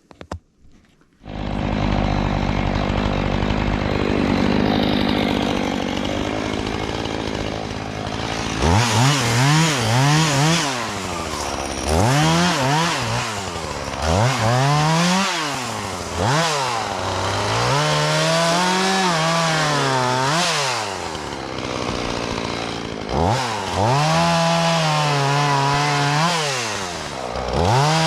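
Two-stroke chainsaw running, steady at first, then from about eight seconds in its engine pitch rises and falls again and again as it is throttled up and loaded while cutting logs.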